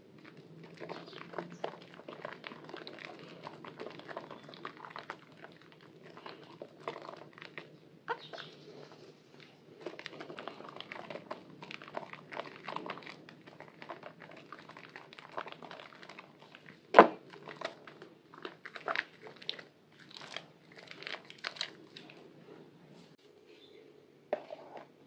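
Wet squelching and crackling of hands squeezing and kneading soaked, mushy white Purbasari bar soap thick with foam. The sounds come as a dense irregular stream of small crackles, with one much louder sharp squelch about two-thirds of the way through, and turn quieter near the end.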